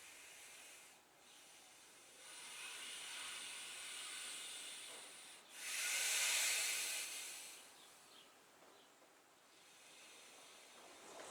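A person breathing deeply during slow movement: a soft, airy breath of about three seconds, then a louder breath of about two seconds.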